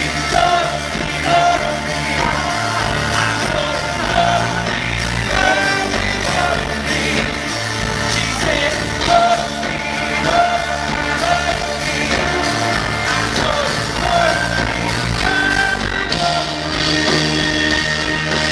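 Live rock band with drums, electric guitar and keyboard playing a song while a singer sings the melody. It is heard from the audience on a pocket camcorder's built-in microphone.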